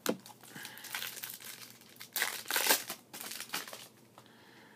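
Foil wrapper of a Topps Chrome trading-card pack being torn open and crinkled in a run of bursts, loudest about two seconds in, stopping about a second before the end.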